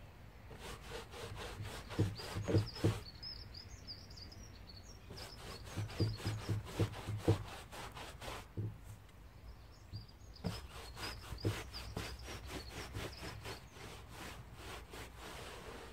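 Paintbrush scrubbing paint onto the timber boards of a wooden garage door: runs of quick back-and-forth strokes, several a second, with short pauses between runs.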